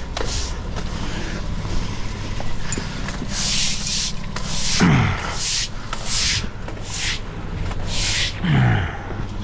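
A stiff broom sweeping wet stone patio slabs, in a series of short, irregular scraping strokes, pushing the flush water away.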